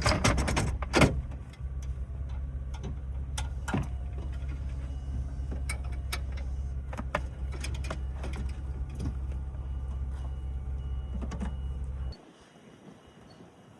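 A steady low machine hum with scattered clicks and knocks over it, loudest in the first second or so. The hum stops abruptly about twelve seconds in.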